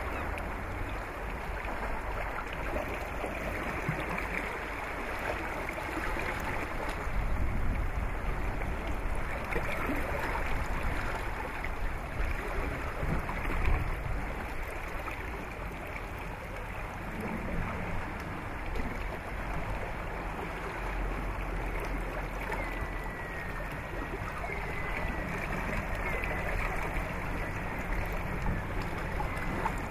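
Harbour ambience around sailing luggers: a steady wash of water and wind noise, with a low rumble that swells now and then.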